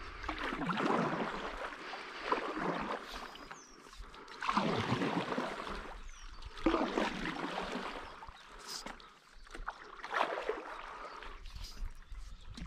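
Stand-up paddleboard paddle strokes in river water: a swish and splash of water with each stroke, coming every two to three seconds.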